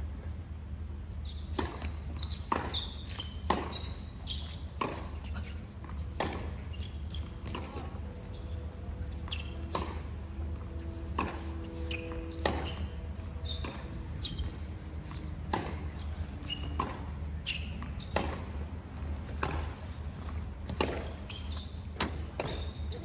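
Tennis rally on a hard court: racket strings striking the ball and the ball bouncing on the court make a string of sharp pops, every half second to a second or so. A steady low hum runs underneath.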